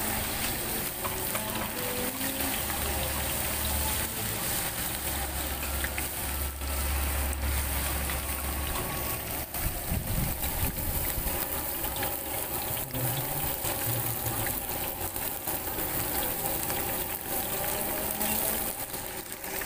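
Battered mackerel and shrimp deep-frying in two woks of hot oil: a steady sizzle, with a low hum underneath from about three to nine seconds in.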